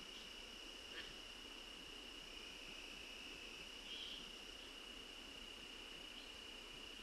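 Faint, steady chorus of insects at a pond at dusk, one unbroken high-pitched drone. A single short click comes about a second in, and a brief louder note about four seconds in.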